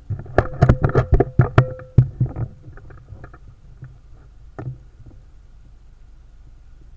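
Rapid run of sharp clicks and knocks for about two and a half seconds, then a couple of isolated clicks: handling noise from the air rifle and its scope-mounted camera as the rifle is moved off target and brought back onto aim.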